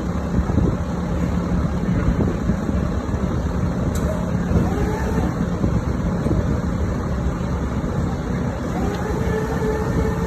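A steady low rumble with no pauses, faint pitched sounds drifting over it about halfway through and near the end.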